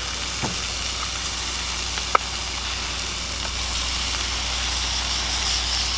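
Steady sizzle of burger patties cooking in a cast iron skillet, with a single light tap about two seconds in. A little before four seconds in, an aerosol can of edible food-colouring spray joins with a brighter, stronger hiss as it is sprayed onto a bun.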